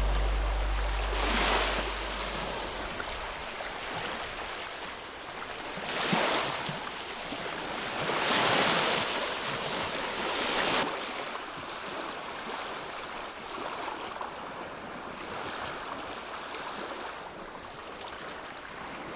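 Wind-driven waves on a large reservoir washing and splashing, with wind; the water noise swells in several surges, loudest about eight to eleven seconds in.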